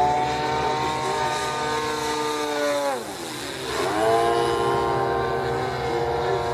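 Radio-controlled model airplanes flying overhead: a steady drone of motor and propeller with many overtones. Its pitch drops steeply about two and a half seconds in and climbs back up about a second later.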